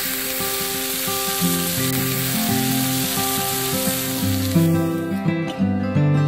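Steady sizzling hiss of sausages and peppers grilling beside an open wood fire, stopping about four and a half seconds in. Acoustic guitar music plays underneath.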